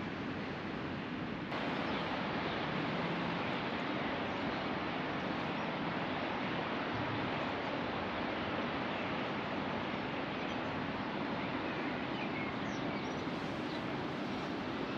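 Steady wind noise on a hilltop lookout, growing a little louder about a second and a half in, with a few faint bird chirps near the end.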